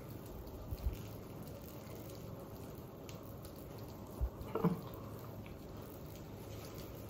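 Quiet room tone with a low steady hum. Soft knocks come near the start and again past the middle, the second followed by a brief squeak.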